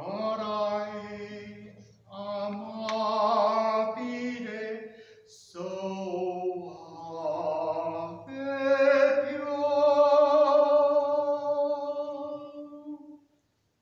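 A man singing solo and unaccompanied, in held phrases broken by short breaths, ending on a long sustained note that stops near the end.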